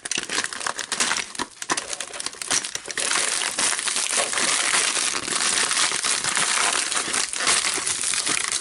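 Packaging crinkling and rustling as a mailed package is opened and rummaged through by hand, a dense crackle of small clicks that gets louder about three seconds in.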